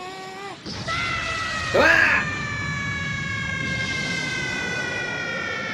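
Anime dub audio of a Kamehameha energy-beam attack. A sudden rising whoosh about two seconds in is the loudest moment, and a long high-pitched tone is held over it, slowly falling.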